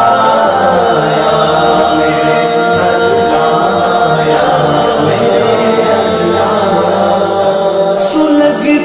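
Vocal music: a chant-like song of held, gently gliding sung notes, with a few sharp clicks near the end.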